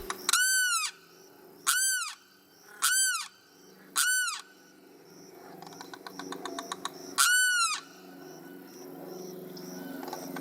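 Limpkin calling: five loud wailing cries, each rising and falling in pitch over about half a second. The first four come about a second apart and the last follows after a pause, over a fainter background of other sounds.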